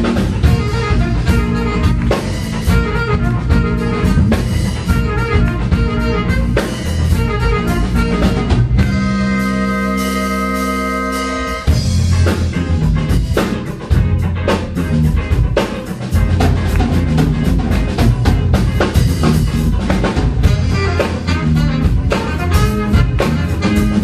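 Live band of drum kit, electric bass, electric guitar and saxophone playing. About nine seconds in, the drums stop and the band holds one chord for nearly three seconds, then the full band comes back in.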